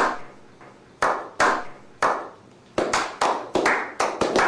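Hand claps: a few spaced claps, then a quicker run of them. Each has a short echo.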